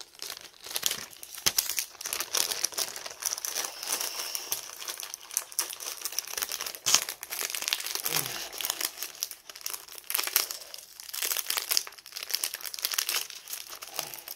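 Clear plastic bag crinkling and crackling steadily as it is handled around a packaged craft kit, with many small sharp crackles.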